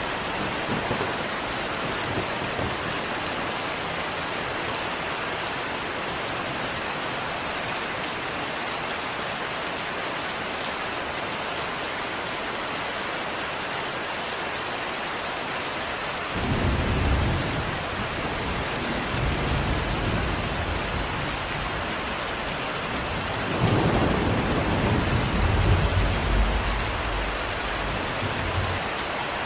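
Steady rain falling, with two low rolls of thunder: one a little past halfway through, and a longer, louder one near the end.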